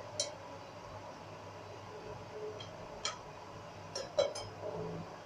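A few light clicks of a knife blade striking a plate while steamed dhokla is cut into wedges and the pieces are pushed apart: one near the start, one about three seconds in, and three in quick succession about a second later, over a faint low hum.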